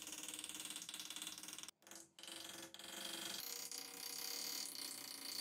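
A hand-held pointed steel tool scraping and scratching into the steel of an axe head clamped in a vise, cutting a decorative pattern over a weld seam: a rapid, rasping run of fine ticks that breaks off briefly about two seconds in.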